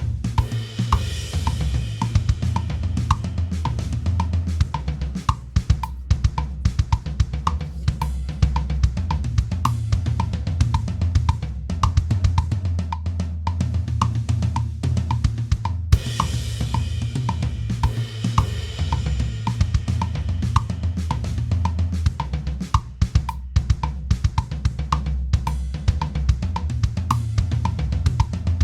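Background music with a steady drum-kit beat and a heavy bass line.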